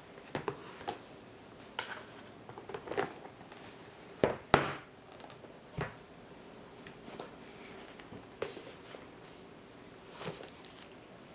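Recipe binders being handled: pages flipping and covers rustling, with scattered light clicks and taps, and two sharp knocks close together about four seconds in.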